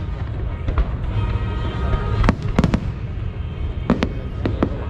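Aerial fireworks bursting, with sharp bangs about a second in, a cluster of three around the middle and two more near the end, over a steady rumble and music playing.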